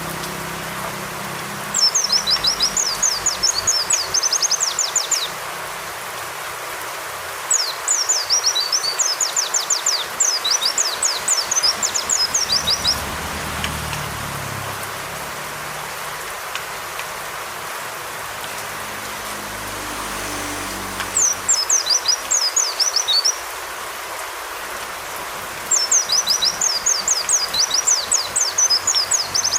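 White-eye (pleci) singing in four separate bursts of fast, high twittering notes, each lasting a few seconds, with pauses between them. A steady hiss of rain runs underneath.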